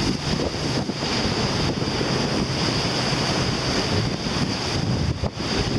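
Strong wind buffeting the microphone over the rush of breaking waves and water around a sailing yacht's hull, under way in rough seas.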